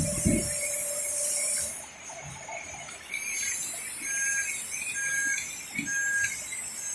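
A small electric motor whining steadily, then cutting out about two seconds in, with two knocks at the start. Three short high beeps follow, about a second apart, over a steady high hiss.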